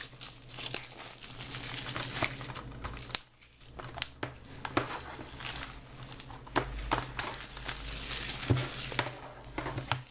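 Plastic shrink wrap being torn and peeled off a Blu-ray case and crumpled in the hands, a dense crinkling with sharp crackles, with a short lull a little after three seconds in.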